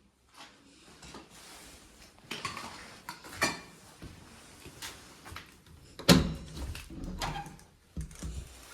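Footsteps and knocks in an empty room: scattered clicks and scrapes, a heavy thump about six seconds in, then a few more thumps and clatter.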